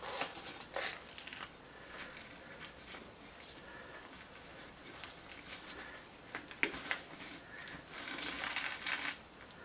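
Rustling and crinkling of hands working twine and a cardboard-and-tape blade cover on a tabletop, with a few light clicks: a short burst at the start and a longer rustle near the end.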